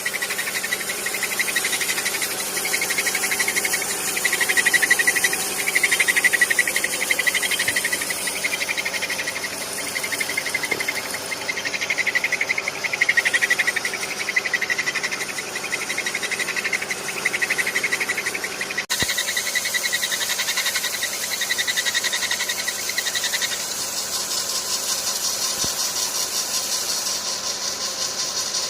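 Car engine's accessory drive belt squealing: a fast, chirping squeal that wavers in level. About two-thirds of the way in the recording cuts and a higher, finer chirping squeal takes over.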